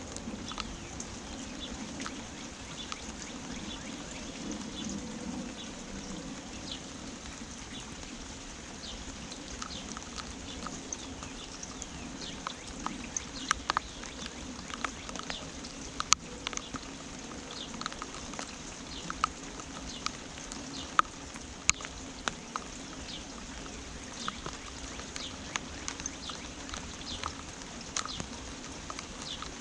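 Steady rain with scattered drops and drips tapping close by, growing more frequent partway through, while small birds chirp now and then.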